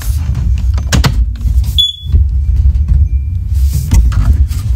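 First Alert OneLink smoke alarm giving a single short, high-pitched power-up chirp about two seconds in, after a few sharp clicks of handling. A steady low rumble runs underneath.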